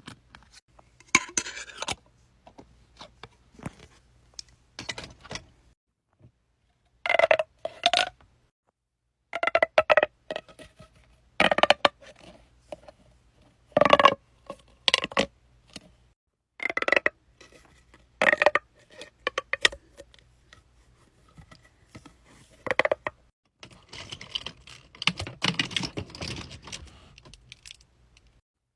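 Small hard objects being handled on a tabletop: a series of separate clicks and taps, some with a brief ringing tone, with a stretch of rustling near the end.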